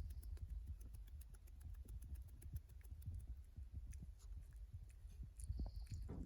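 A hyrax chewing close to the microphone: a quick, irregular run of small clicks and soft crunches over a low rumble, with a short rasping sound near the end.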